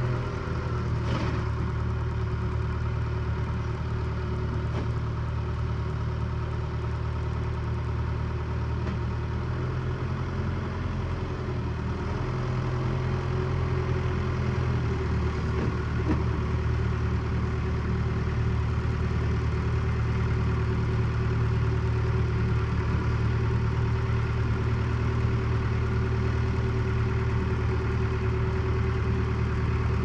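Case 580K backhoe's diesel engine running steadily at low speed as the machine moves slowly closer, growing a little louder in the second half.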